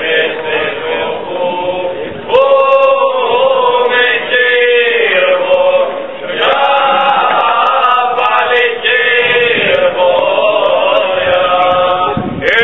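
A group of men singing a Cretan rizitiko folk song in long, drawn-out phrases. A new phrase comes in louder about two seconds in, and again about six seconds in.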